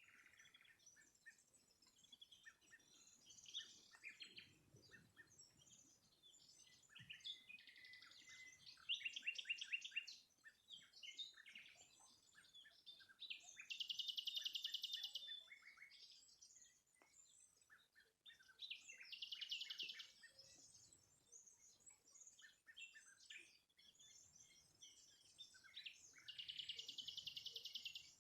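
Songbirds singing faintly: a rapid trill of fast repeated notes comes about every five seconds, four times, with scattered short chirps in between.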